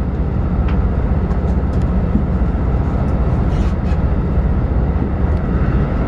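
Steady low rumble of a diesel limited express train running, heard from inside the passenger car, with a few faint clicks.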